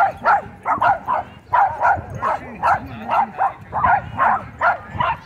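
A dog barking over and over in a quick, steady run, about three barks a second.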